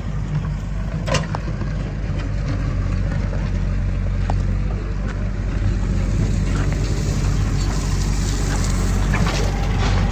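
A heavy diesel engine of a backhoe loader or farm tractor running steadily, with a few sharp knocks on top, growing slightly louder after about six seconds.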